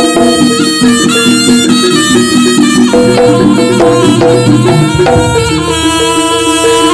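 Live Javanese jaranan ensemble music: a reedy melody played on a slompret (Javanese shawm) over kendang drums and gamelan percussion.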